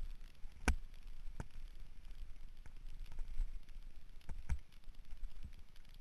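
Mountain bike descending a rough dirt forest trail, heard from a helmet-mounted camera: a low rumble of the ride with several sharp knocks and clicks as the bike goes over bumps, the loudest under a second in.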